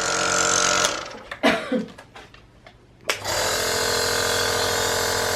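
Small compressor nebulizer (home inhaler) running with a steady motor hum. It cuts out about a second in and starts up again about three seconds in.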